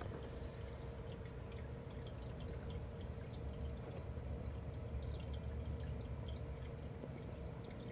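Quiet room tone: a steady faint hum with a low rumble underneath and scattered small ticks. The swallowing python makes no distinct sound.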